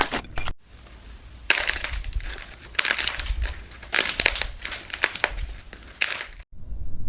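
Slime being squeezed and pressed, making dense crackly, crunching pops in bursts. The sound breaks off sharply about half a second in and again near the end.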